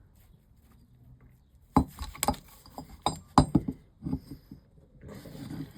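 Sharp metallic clinks and knocks of engine parts and tools being handled, about ten irregular strikes between about two and four seconds in.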